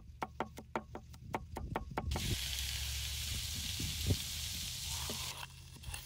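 Broad cleaver-style knife chopping garlic on a wooden cutting board: rapid, even knocks, about six a second, for about two seconds. Then a steady hiss for about three seconds, with one louder knock in it.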